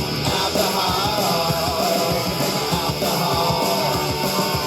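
Heavy rock music with guitar over a fast drumbeat, between sung lines.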